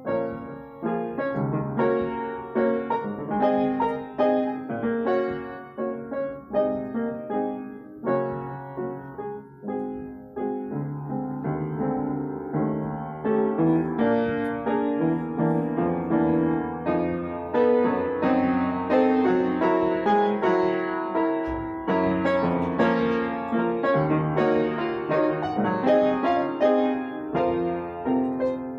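Solo piano piece, a steady flow of notes and chords that grows fuller and a little louder about halfway through.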